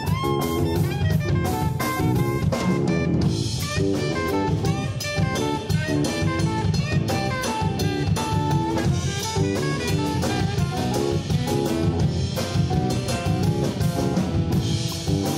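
Live jazz band playing: a saxophone runs fast melodic lines over a drum kit with busy cymbal and drum work, backed by bass.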